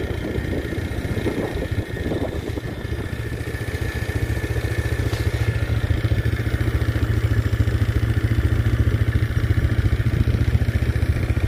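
Quad (ATV) engine running steadily, heard from on board, with some clatter in the first couple of seconds.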